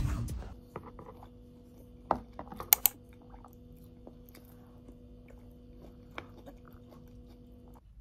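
A steady low hum, like a small machine running, that cuts off suddenly near the end, with a few light clicks and taps of handling, the sharpest a cluster about three seconds in.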